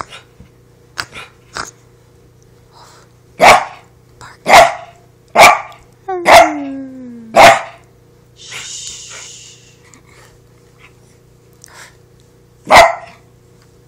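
Small dog barking: a few quieter yaps first, then five loud barks about a second apart, one of them trailing off into a falling whine, and a single loud bark again near the end.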